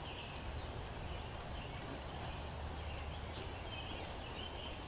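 Quiet woodland background: a low steady rumble with faint, scattered bird chirps and a couple of light ticks.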